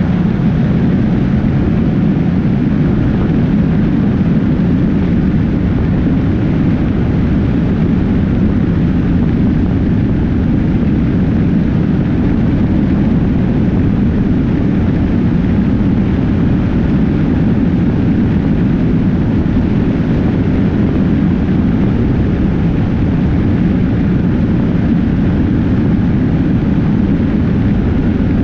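Steady, loud rush of wind buffeting a camera mounted low on a sport motorcycle's fairing, together with tyre and road noise, as the bike rides along a highway at speed.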